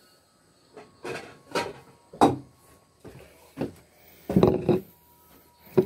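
Handling noise: about half a dozen separate knocks and clunks as a bowl and other objects are picked up and set down, with a longer, louder clatter a little past the middle.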